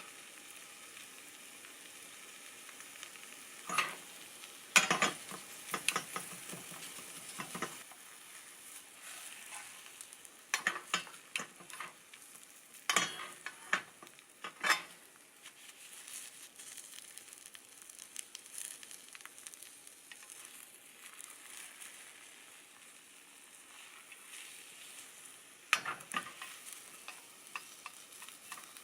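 Food sizzling in a frying pan, with a cooking utensil scraping and tapping against the pan now and then.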